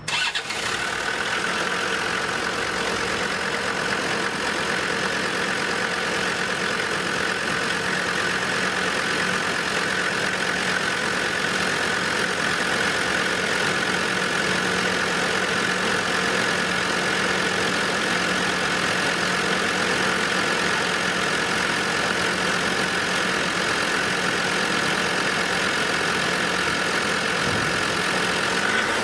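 Land Rover Discovery 2 Td5 2.5-litre five-cylinder turbodiesel starting and then idling steadily, run after its injector wiring loom has been replaced.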